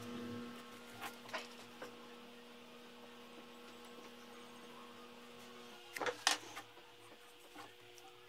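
A steady electrical hum, with a few faint scratches and taps of a pencil and hands working on a sketchbook page. The loudest is a quick cluster of clicks about six seconds in.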